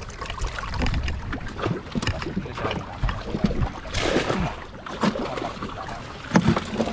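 Pond water splashing and sloshing as men wade and handle netted African catfish, with scattered knocks and clicks and a louder splash about four seconds in.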